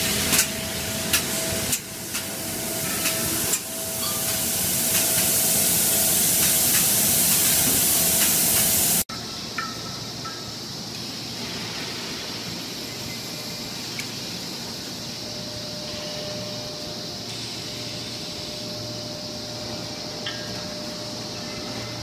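Loud steady hiss of pressurised gas, with a steady tone and a few sharp clicks, in an LPG cylinder plant. It cuts off suddenly about nine seconds in, giving way to quieter steady factory noise with a low hum and occasional faint clicks.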